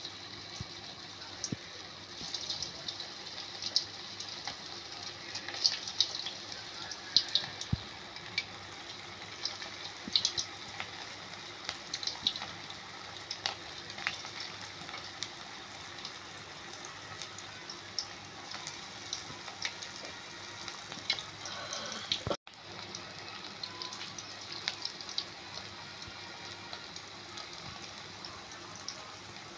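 Hot oil sizzling steadily with scattered sharp pops and crackles as vegetable manchurian balls of chopped cabbage, carrot and capsicum deep-fry in it. The sound cuts out for a moment about three-quarters of the way through.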